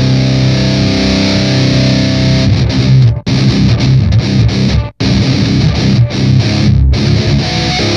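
Electric guitar through an Electro-Harmonix Nano Metal Muff distortion pedal, playing a heavily distorted metal riff. A held chord gives way to fast chugging, and the sound cuts off abruptly twice, about three and five seconds in.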